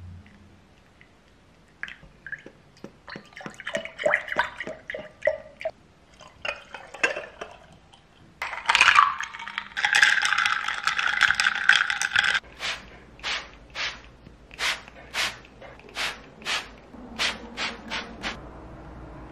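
Ice cubes clinking and rattling in a glass as iced coffee is poured and stirred with a straw. The loudest part is a dense stretch of pouring and rattling about halfway through. It ends in a run of separate sharp clinks, about two a second.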